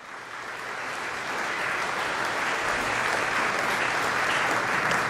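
Audience applauding, fading in over the first second or so and then holding at a steady, full clapping.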